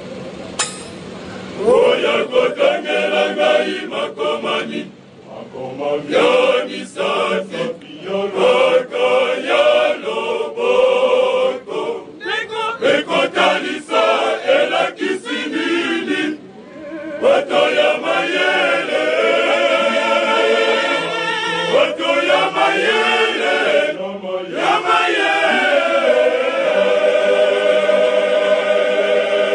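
Male choir singing, its phrases broken by short pauses about 5, 16 and 24 seconds in.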